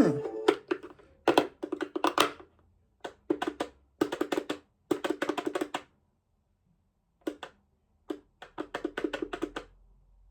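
Fisher-Price Barbie toy car's electronic sound module playing short snippets of quick staccato music, about seven separate bursts with pauses between them. The snippets are set off by the toy's button.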